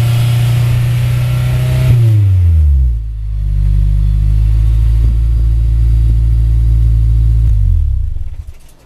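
Honda S2000's four-cylinder engine through a Ganador Vertex Titan titanium exhaust, held at raised revs, then falling back to a lower steady speed. The engine is shut off near the end.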